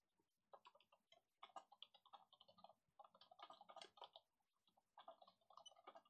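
Near silence, with faint runs of small rapid clicks.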